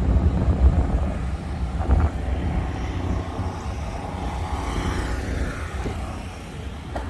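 Low rumble of a vehicle driving slowly, with wind buffeting the microphone.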